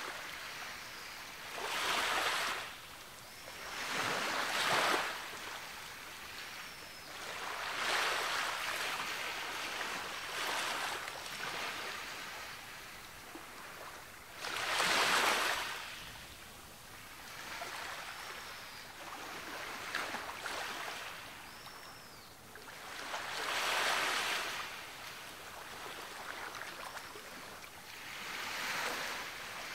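Ocean waves breaking and washing up on a beach, the surf swelling and fading every few seconds, with the biggest surges about 4 and 15 seconds in.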